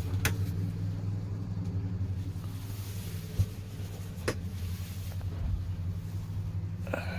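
A steady low mechanical hum, like a motor or engine running, with two short sharp clicks.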